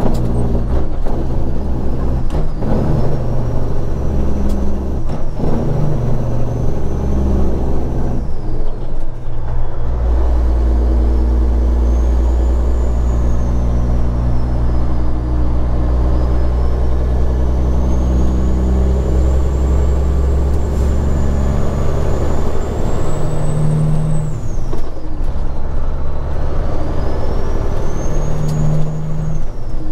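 Straight-piped Caterpillar 3406E inline-six diesel in a loaded Kenworth W900, running steadily under load, with a high turbo whistle rising and falling. The engine note breaks briefly about nine seconds in and again near twenty-five seconds.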